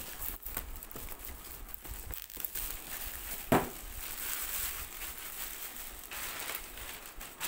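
Plastic courier mailer bag crinkling as the cardboard router box is handled, with one sharp thump about three and a half seconds in as the box is set down on the concrete floor.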